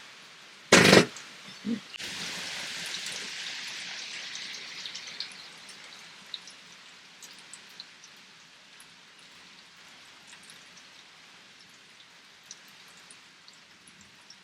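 Steady rain falling and dripping, heavier for a few seconds near the start and then easing to a light patter with scattered drops. A single sharp knock about a second in is the loudest sound, followed by a softer one.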